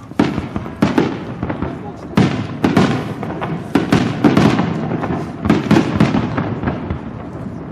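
Aerial fireworks bursting in rapid succession: many sharp bangs with crackling in between, thinning out near the end.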